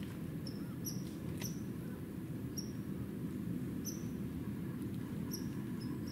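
Short high chirps from a small animal, repeated irregularly about once a second, over a steady low rumble.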